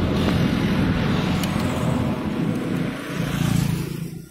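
Motor vehicles passing close by on the road: engine hum and tyre noise that cut off suddenly near the end.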